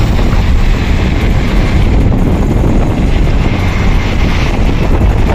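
Wind buffeting the microphone of a moving scooter, a loud, steady rumble, with road noise underneath.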